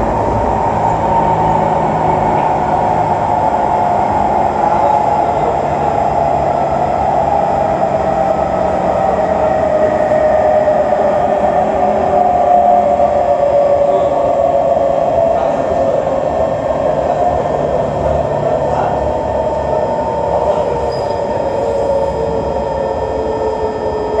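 Kawasaki C151 MRT train heard from inside the car: a steady running rumble with a traction motor whine that slowly falls in pitch as the train slows.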